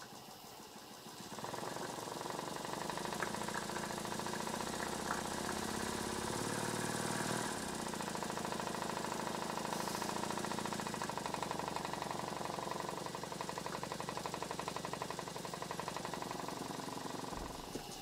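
Twin-cylinder Stuart Sirius model steam engine running fast on live steam, with rapid, even exhaust beats over the hiss of the boiler's gas burner, which is turned fully up. About a second in the sound gets louder and stays up until near the end, when it drops back.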